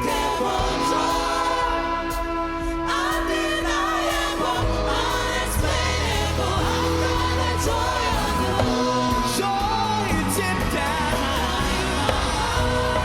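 Live worship band of keys, guitar, bass and drums playing with singers; the bass grows stronger about four and a half seconds in.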